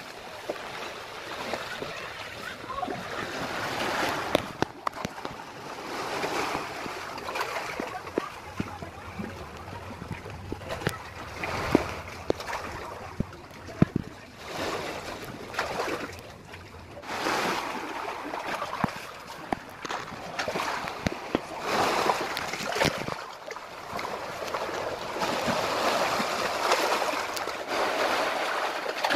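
Sea waves surging and splashing over rocks at a sea cave's mouth, the wash swelling and falling away every few seconds, with a few sharp clicks.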